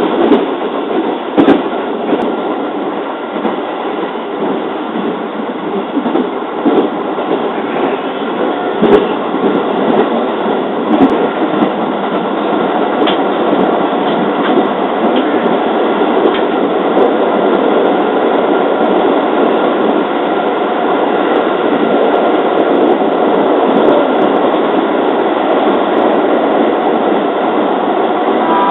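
Running noise of a JR 205 series electric train heard from inside the passenger car: a steady rumble of wheels on rail with a few sharp clicks in the first dozen seconds, growing gradually louder.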